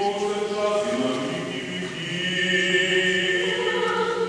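Eastern-rite liturgical chant, sung in slow notes each held for a second or more.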